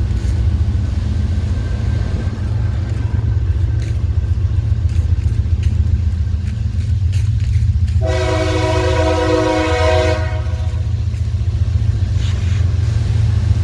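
A freight locomotive's air horn sounds one chord of several tones for about two seconds, over a steady low rumble.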